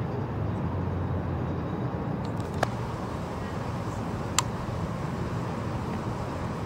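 Steady low rumble of distant road traffic, with two short, sharp clicks about two seconds apart.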